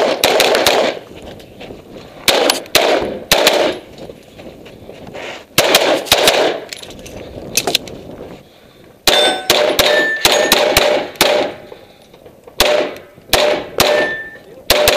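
Pistol firing in quick strings and pairs of shots, in several bursts with short pauses between as the shooter moves. In the second half many shots are followed by a short metallic ring, from steel targets being hit.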